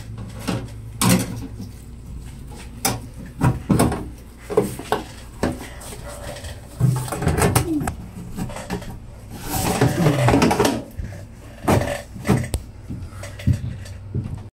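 Plastic bathroom exhaust fan cover being fitted to the ceiling: its clips are slid into the notches of the metal fan housing, giving irregular clicks, knocks and short creaks over a steady low hum.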